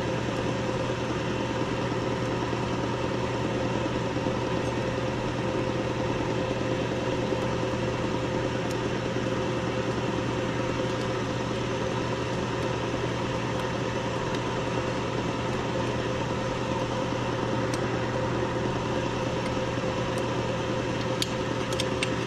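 Steady electric hum of the shop's hydraulic press pump motor running, even and unchanging, with a few light clicks near the end.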